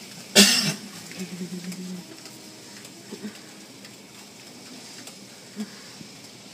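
Automatic car wash heard from inside the car: a brief loud burst as the wash hits the windshield about half a second in, then a steady hiss of water spray and cloth strips sweeping over the glass, with a few small knocks.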